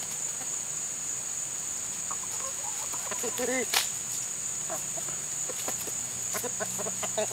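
Chickens clucking softly now and then, with one short, clearer call about halfway through, over a steady high-pitched drone of insects.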